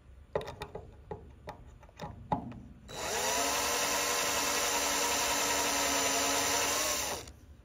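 A few light clicks, then about three seconds in a power drill with a small number 40 bit starts and drills steadily into an aluminum AN470 dome-head rivet head for about four seconds, its motor whine holding an even pitch, before stopping sharply. It is drilling only to the depth of the rivet head's thickness, to free the head.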